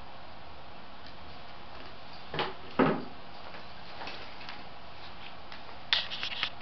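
Wooden wheelchair tray being set down: two knocks about half a second apart, a little over two seconds in, the second one louder. Near the end, a quick run of clicks and taps.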